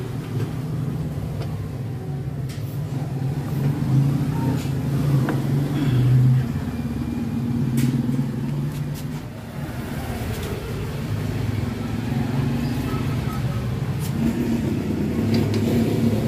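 A motor vehicle engine running, a steady low rumble that swells and eases a few times. A few light metallic clicks come from parts being handled.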